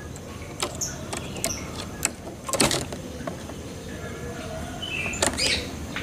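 A caged dove moving about in its wooden cage: scattered light clicks and taps, a short rustle about two and a half seconds in, and another flurry near the end as it drops onto the perch. Faint high chirps of small birds sound in the background.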